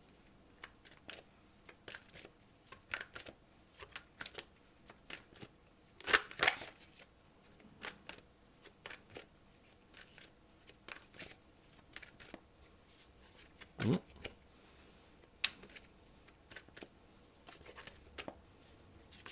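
A deck of oracle cards shuffled by hand: irregular soft flicks and clicks of the cards, loudest about six seconds in.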